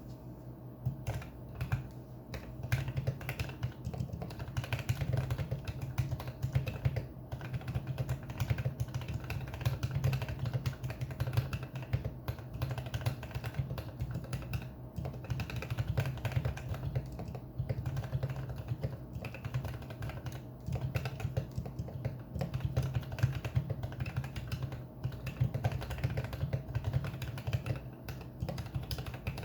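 Typing on a GK64 mechanical keyboard with lubed and filmed Outemu Ice Clear V2 switches, PBT keycaps, an aluminium plate and a foam-filled wooden case: a continuous run of quick key presses starting about a second in, over a steady low hum.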